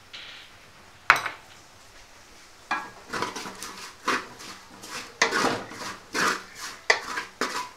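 A wooden spatula scraping and stirring fried shallots and spice powders around a metal pot, with a single knock about a second in, then quick repeated scraping strokes, two to three a second, from about three seconds in.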